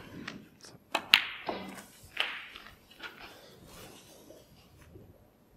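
Snooker balls clicking in a quiet arena: a few sharp clicks about a second in, from the cue tip on the cue ball and ball-on-ball contact, then a couple more spaced clicks over the next two seconds.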